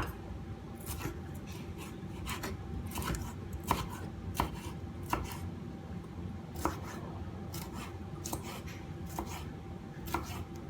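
Kitchen knife cutting a vegetable on a chopping board: separate sharp knife strokes, roughly one a second and unevenly spaced.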